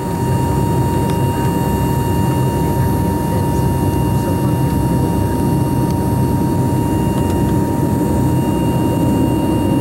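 BAe 146-100's Lycoming ALF 502 turbofan engines running steadily while the jet taxis, heard inside the cabin: a constant low rumble with a steady whine over it.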